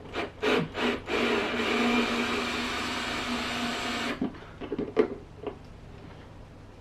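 Handheld electric power tool: a few brief trigger blips, then a steady motor run with a low hum for about three seconds that cuts off suddenly, followed by a few light clicks.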